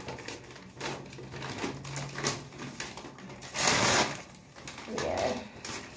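Handling noise from a cardboard hair-relaxer kit box moved about close to the microphone: scattered rustles and light knocks, with the loudest scrape just before four seconds in.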